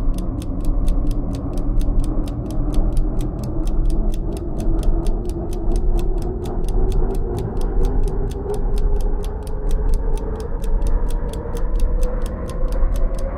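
Stopwatch ticking sound effect: fast, even ticks, about four a second, over a low hum that rises slowly in pitch.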